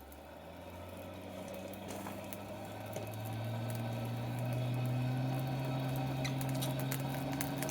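A motor starting up: its hum climbs slowly in pitch and loudness over the first few seconds, then holds steady, with scattered light crackles and ticks that grow more frequent near the end.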